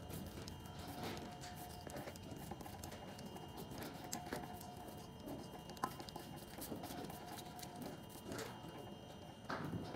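Faint, irregular dabbing and tapping of a brush stippling resin into wet fibreglass mat to work out air bubbles.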